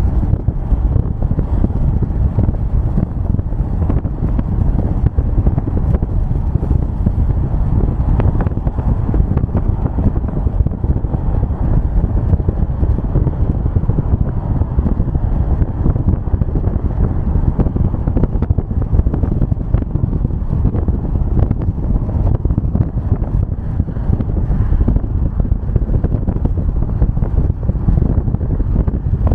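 Steady road and wind noise of a car driving at highway speed, a low, even rumble that does not change.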